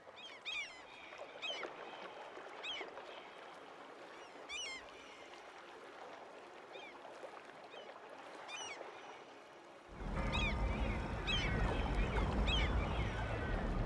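Birds chirping in short separate calls, a few seconds apart, over faint background hiss. About ten seconds in, a louder low rumble starts suddenly and the calls carry on over it.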